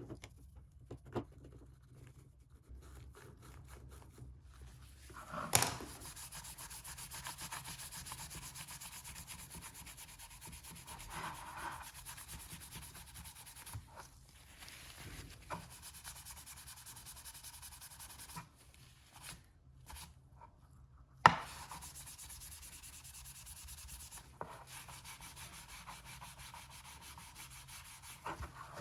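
Steady abrasive rubbing on a clipper part during cleaning, in two long stretches with a short pause between them. A sharp knock sounds about five and a half seconds in, and another one about twenty-one seconds in.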